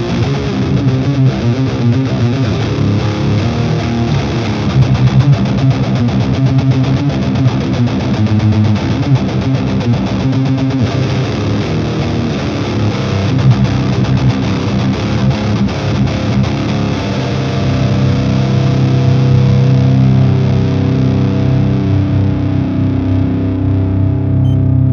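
Background music led by distorted electric guitar, busy and dense at first, settling into long held notes in the last several seconds.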